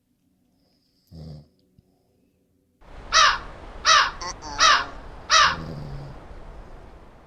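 A crow cawing four times in quick succession, about one harsh caw every 0.7 s, over a faint hiss that fades away. A short low sound comes about a second in, before the caws.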